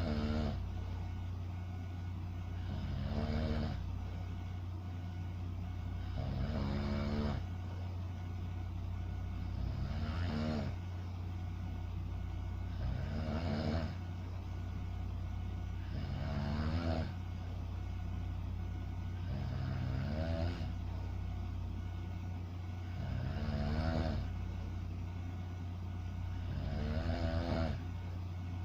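A sleeping person snoring in a slow, even rhythm, one pitched snore about every three and a half seconds, nine in all. A steady low hum runs beneath.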